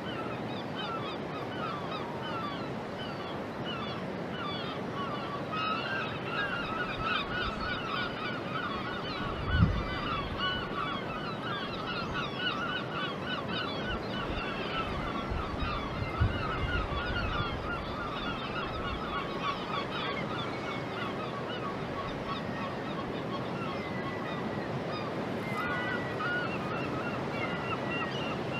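A flock of birds calling all at once, a dense chatter of short repeated calls that thickens about six seconds in and thins out after about twenty seconds. Under it runs a steady wash of outdoor noise, with a low thud about ten seconds in and another a few seconds later.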